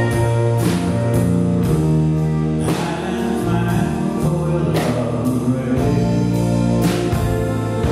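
Gospel rock song playing, with singing over sustained chords and a bass line, and struck drum accents about once a second.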